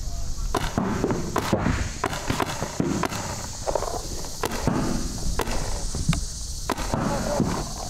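Paintball markers firing irregular sharp shots, single snaps and short strings of two or three, over a steady low rumble.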